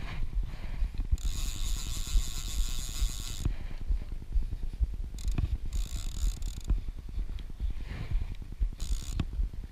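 Fly reel's click-and-pawl ratchet clicking rapidly as the line is wound in by hand, in spurts that start and stop, the longest about two seconds.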